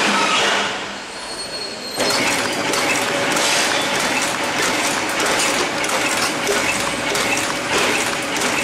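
Tea bag packing machine running: a fast, steady mechanical clatter of many small clicks, with a steady tone beneath. The sound changes abruptly about two seconds in.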